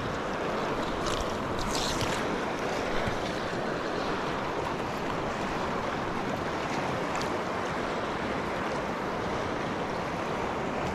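Steady rushing of river current flowing close past the microphone, with a few short high scratchy sounds about one to two seconds in.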